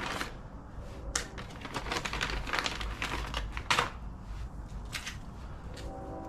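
Handling of a tire plug repair kit: irregular clicks and rustles of plastic packaging and parts as the small plug strips are taken out, with a couple of sharper clicks.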